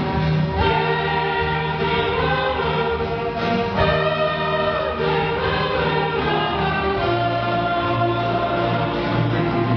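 Church orchestra playing a hymn, many instruments holding chords together.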